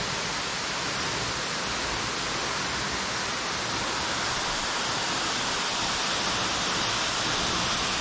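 A tall waterfall's steady rushing hiss, growing slightly louder toward the end.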